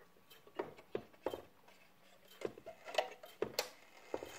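Mantel clock movement clicking and ticking at an uneven pace, several of the clicks leaving a faint metallic ring.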